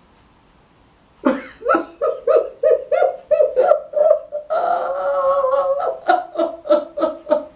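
A woman laughing after a short pause: a rhythmic run of short voiced bursts, about four a second, with one drawn-out wavering note in the middle.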